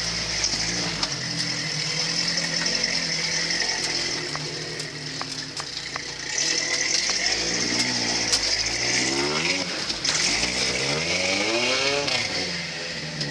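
Engine of a caged, big-tyred rock-crawler pickup running under load as it crawls up a rocky ledge, revving up twice in the second half.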